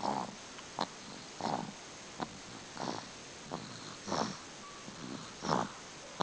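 Snoring: a short noisy breath about every second and a half, with a brief sharp click or snort midway between breaths.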